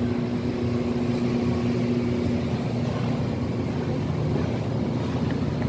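A steady engine or motor running with a low rumble, with a humming tone on top that stops a little over two seconds in.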